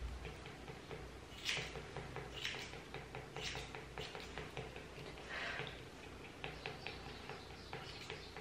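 A Bichon Maltese panting faintly in short breaths about once a second, with light clicks in between.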